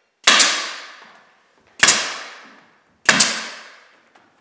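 Pneumatic stapler, run off an air compressor, firing three times about a second and a half apart. It is driving 1¼-inch staples through bullnose corner bead into drywall. Each shot is a sharp double crack that rings away over about a second.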